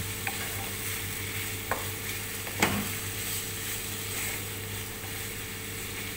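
Chicken pieces sizzling in a frying pan while a wooden spatula stirs them, with a few short knocks of the spatula against the pan, the loudest about two and a half seconds in.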